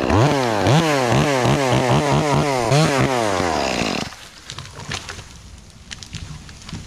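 Chainsaw cutting through a limb, the engine's pitch surging up and down several times a second. It stops about four seconds in, followed by faint scattered knocks and rustles.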